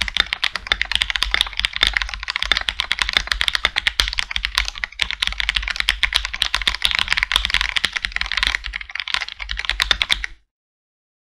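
Fast, continuous typing on a Hello Ganss GS87D tenkeyless mechanical keyboard with lubed Cherry MX Red linear switches: dense, quick keystrokes. The typing cuts off abruptly about ten seconds in.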